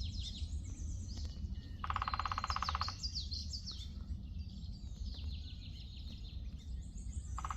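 Songbirds singing in woodland: many quick, high, falling chirps throughout. A lower, rapid trill about two seconds in lasts about a second and comes again near the end.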